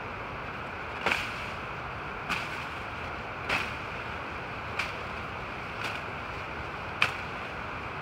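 Machete hacking through tall grass and brush: six short, sharp strokes about a second apart.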